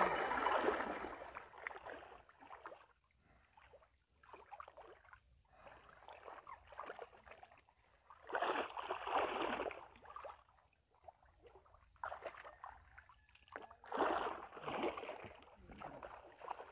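Water splashing and sloshing in irregular bursts, loudest about eight seconds in and again around fourteen seconds, with quieter trickles and splashes between.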